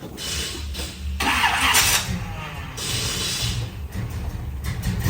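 A car engine running steadily, with loud bursts of hissing noise over it in the first two seconds and again about three seconds in.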